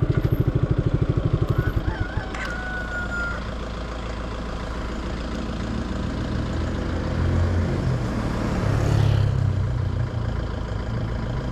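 Motorcycle engine idling with a fast, even putter for the first two seconds, then steadier engine and road noise. A broad swell of noise rises and falls about nine seconds in.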